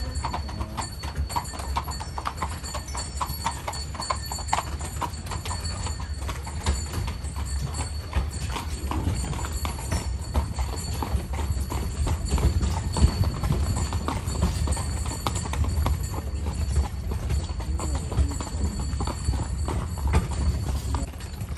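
Carriage horse's hooves clip-clopping steadily on the road, a continuous run of short knocks over a steady low rumble.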